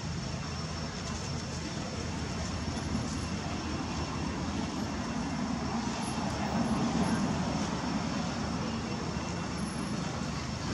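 Steady outdoor background noise: a low rumble with hiss and a faint high steady tone, swelling a little in the middle.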